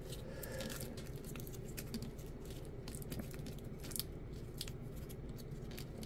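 Faint scattered rustles and small clicks of fingers handling and pressing a foam pad onto a LiPo battery's soldered tabs, over a steady low hum.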